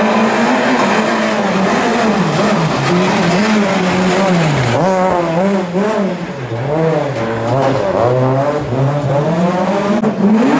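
Rally car engine at high revs, its pitch rising and falling again and again as the throttle is lifted and reapplied through a bend. Near the end a second rally car's engine comes in, rising.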